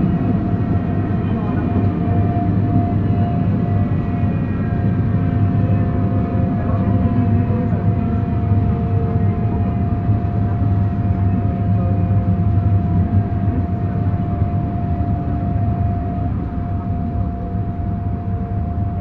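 EP2D electric multiple unit running: a steady low rumble with a constant whine and fainter electric whines that fall slowly in pitch.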